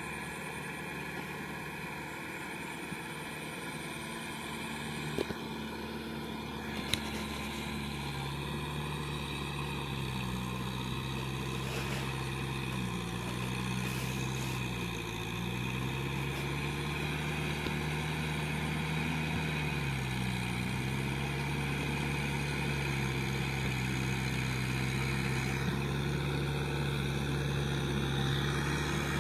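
Kubota M6040SU tractor's diesel engine running under load while it pulls an implement through a flooded rice paddy. The engine pitch sags briefly a few times partway through, and the sound grows louder as the tractor comes closer.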